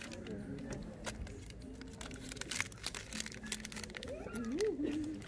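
Scattered short crinkles and clicks of a small food wrapper being handled and torn open by hand while treats are fed to a small dog, over a low steady background. Near the end comes a brief wavering call or murmur.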